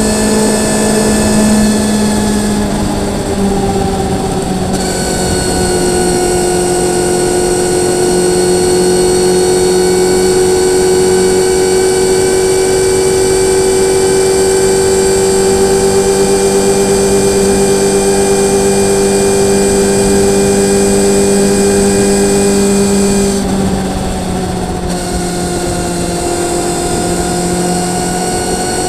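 Motorcycle engine running at steady revs while cruising on the open road, with wind rush underneath. The engine note steps down about three seconds in and eases off again briefly near the end.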